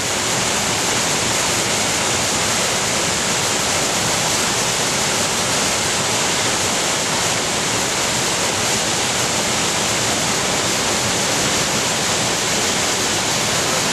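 Waterfall rushing steadily as it pours over a rock ledge into a churning plunge pool.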